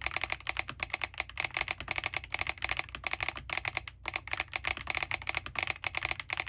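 Fast typing on a Smurve80 mechanical keyboard with Keygeek Oat switches lubed with Krytox 205g0, doubleshot PBT keycaps, an aluminium plate and full foam, with a solenoid firing on each keystroke. The keystrokes run in a rapid, uneven stream with a brief pause about four seconds in.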